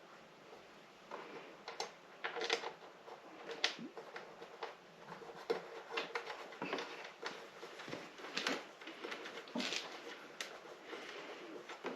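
Monitor-arm parts and screws being handled and fitted by hand: irregular light clicks, clacks and rustles.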